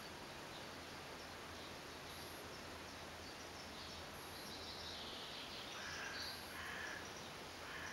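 Faint outdoor ambience: a steady background hiss with scattered faint bird chirps, a few more of them in the second half.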